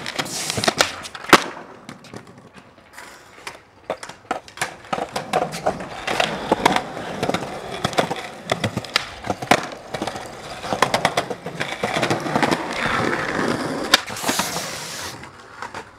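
Skateboard on concrete: urethane wheels rolling, broken by many sharp clacks of the tail popping and the board landing during flatground tricks, with a louder rush of rolling near the end.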